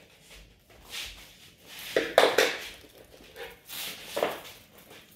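Plastic stretch wrap being pulled off a hand roll and wound around a cardboard box, crackling and rustling in several bursts, the loudest about two seconds in.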